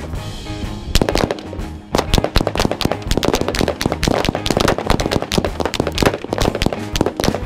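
Many handguns and rifles firing at once in rapid, overlapping shots, several a second, over background music.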